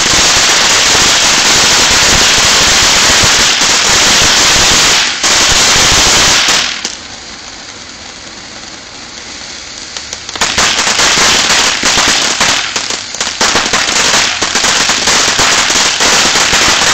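A ground fountain firework spraying sparks with a loud, steady hiss for about the first seven seconds, then easing off. About ten seconds in it starts crackling densely with many rapid pops that run on through the rest.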